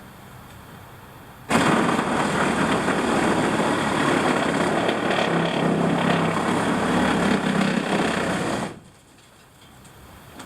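Power saw cutting through old barn floorboards. It starts abruptly, runs steadily for about seven seconds and then stops.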